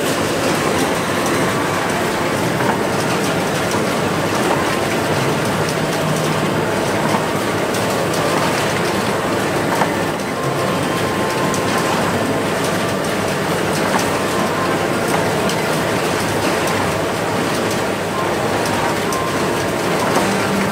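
Egg-packing line machinery and its chain conveyor running steadily as a dense clattering noise, with scattered light clicks.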